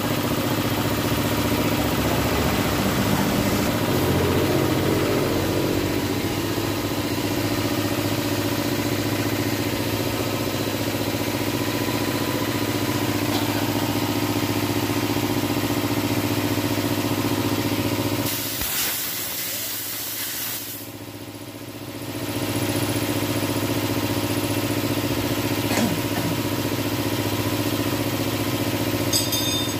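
Piston air compressor running with a steady pulsing hum. About eighteen seconds in there is a short hiss of air, then the hum drops away for a couple of seconds and comes back.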